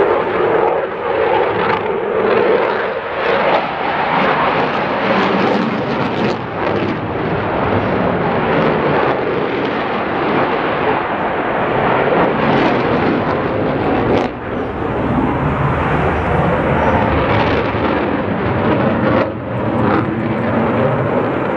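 Jet aircraft flying a display pass: a loud, steady rushing roar that swells and dips slightly.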